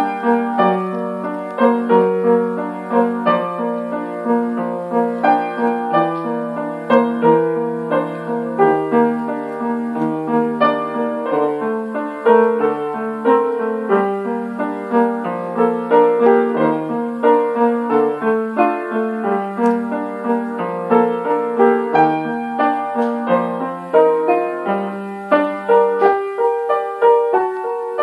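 Solo upright piano played with both hands: a melody struck about twice a second over held bass notes.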